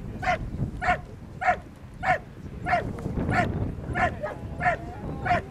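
Belgian Malinois-type dog doing a bark-and-hold at a protection-sport blind, barking steadily at the helper hidden inside. There are about nine evenly spaced barks, a little under two a second.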